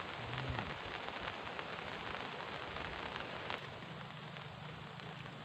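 Steady rain falling, an even hiss of many small drop ticks, with one sharper tick about three and a half seconds in.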